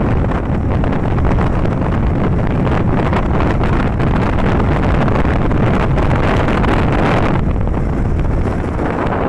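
Steady, loud wind rush on the microphone of a phone held out from a moving motorcycle, with the bike's running noise underneath.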